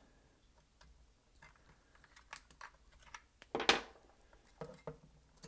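Light plastic clicks and taps from handling a TI-83 Plus graphing calculator while its battery cover is off and the AAA batteries are being taken out, with one louder short scuff about three and a half seconds in.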